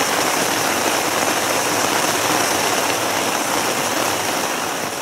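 Wood campfire burning with a dense, steady crackle and hiss.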